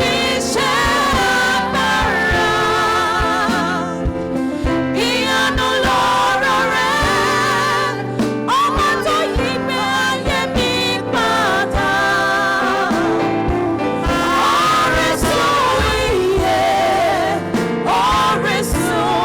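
Gospel singing with music: a singer or group of singers over held chords and a steady beat.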